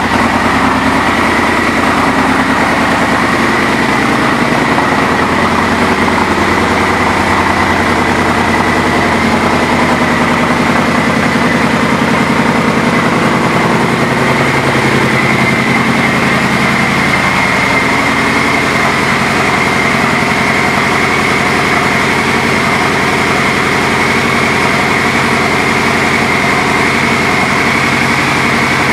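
2012 Yamaha Royal Star Venture S's V4 engine idling steadily through an aftermarket exhaust.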